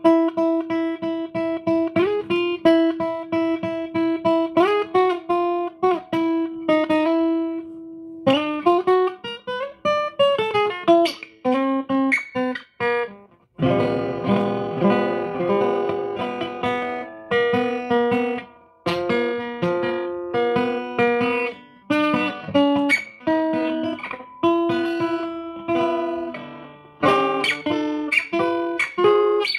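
Solo guitar, picked note by note: a repeated ringing note with short runs over it. About 13 seconds in, the playing fills out into fuller picked chords with lower bass notes.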